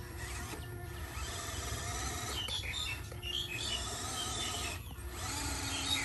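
Small electric motor and gearbox of a radio-controlled scale off-road truck whining as it crawls. The whine changes pitch a few times.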